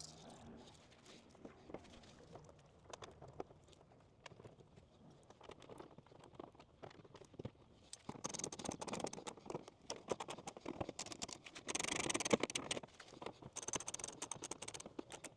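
Rapid light clicking and metallic ticking of bolts and hand tools as mud-flap bolts are threaded into the truck's fender and snugged. The clicks are sparse at first and get denser and louder about halfway through.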